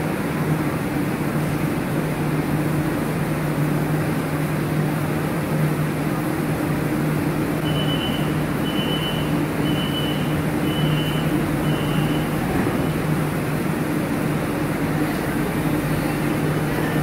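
Steady rumble of a vehicle with a constant low hum. About eight seconds in, five short high beeps sound about a second apart.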